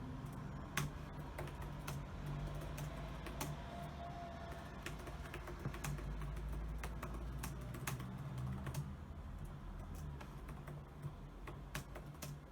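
Typing on a computer keyboard: a run of quick, uneven key clicks over a steady low hum.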